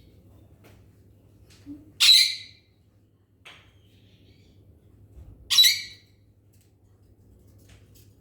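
Two short, loud squawk-like animal calls, about three and a half seconds apart.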